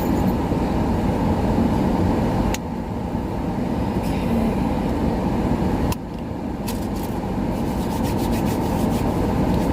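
Car air-conditioning blower on high inside a car cabin: a steady rush of air. There are two sharp knocks, about two and a half and six seconds in, where the noise dips slightly.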